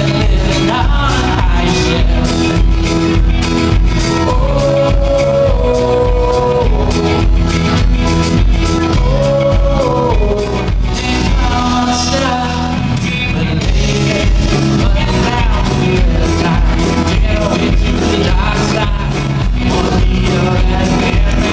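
A live band playing a rock song: a man singing lead over strummed acoustic guitar, electric guitar, keyboard and a drum kit keeping a steady beat.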